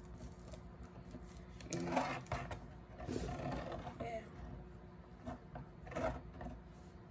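Rustling and scraping of a human-hair headband wig being handled and fitted right against the microphone, with a few sharp clicks and a steady low hum underneath.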